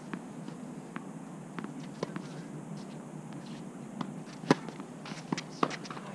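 A tennis ball bounced a few times on the hard court before a serve, then the sharp knock of the racket striking the ball on the serve about four and a half seconds in, the loudest sound. A few fainter knocks follow: the ball landing and being played.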